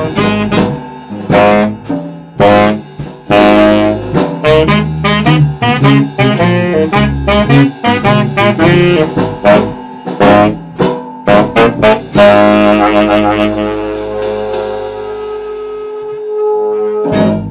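Live jazz saxophone and electric bass playing a rhythmic passage with sharp percussive hits. About twelve seconds in, the band lands on a held final chord that slowly dies away, and a last loud short hit comes just before the end.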